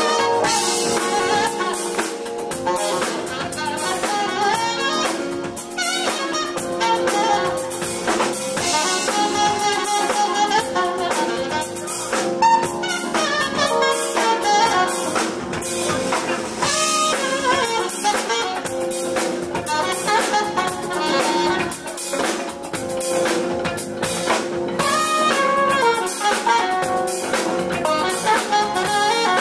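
Live jazz band playing: saxophone carrying the melody over drum kit, electric bass, electric guitar and keyboards.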